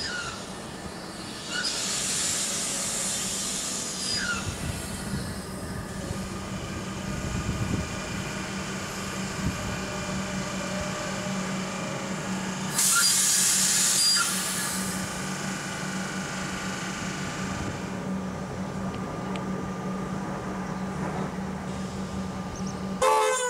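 Comeng electric multiple unit train pulling in and standing at a platform, with a steady hum from the train. Two loud bursts of hiss come about two seconds in and again around thirteen seconds, and there is a short sharp sound just before the end.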